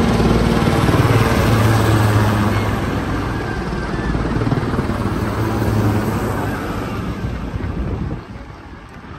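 Military helicopters flying low overhead, a fast rotor chop over a deep engine hum, fading about eight seconds in as they pass.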